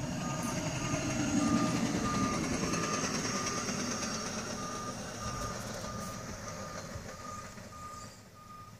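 Backup alarm of a CSX hi-rail service truck reversing along the rails: a steady series of evenly spaced high beeps. The truck's running noise underneath fades as it backs away.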